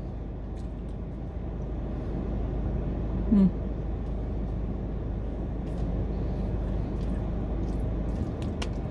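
Steady hum of a car's air conditioning running, heard inside the cabin, with a brief murmured 'mm' about three and a half seconds in. A few light clicks of a plastic fork in a plastic food container come near the end.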